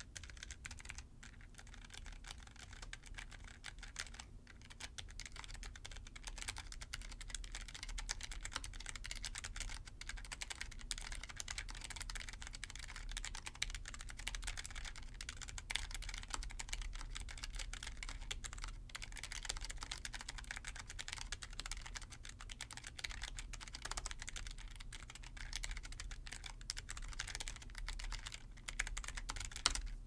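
Continuous fast typing on a Logitech G915 Lightspeed low-profile mechanical keyboard: a dense clatter of its GL key switches, broken by brief pauses about four seconds in and again near nineteen seconds.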